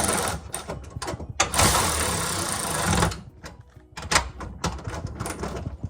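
A cordless power driver running a bolt in, in two short bursts of about a second or so each, followed by light clicks and knocks of parts being handled.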